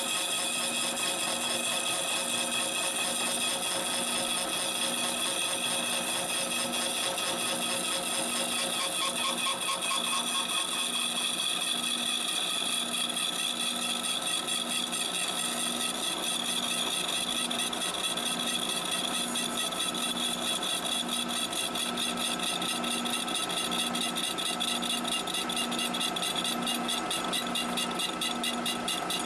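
Milling machine running a slitting saw through a metal bar on slow power feed: a steady cutting whine with high ringing tones. A low hum underneath pulses a little more than once a second.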